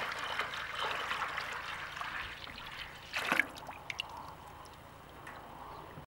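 Freshly pressed grape juice pouring from a hose into a metal tub, a splashing trickle that slowly fades, with one sharper splash about three seconds in.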